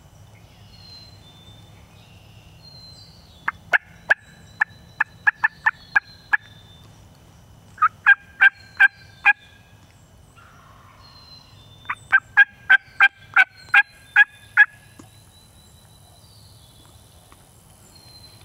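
Turkey yelps: three series of short, sharp, evenly spaced notes, about three a second, with a pause between series. Songbirds whistle faintly in the background.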